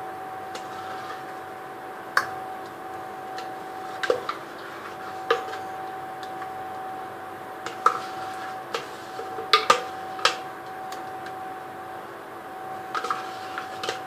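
Scattered light clicks and knocks of kitchen utensils being handled against a bowl or container, at irregular intervals with a quick cluster of them about two-thirds through. A steady hum runs underneath.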